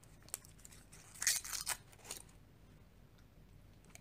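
A chocolate's wrapper crinkling and tearing as it is opened, with a short crackly burst about a second in.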